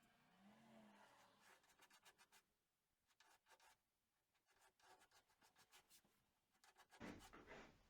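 Faint, irregular scraping strokes of a filleting tool working thickened epoxy into a fillet along a hull seam, a little louder near the end.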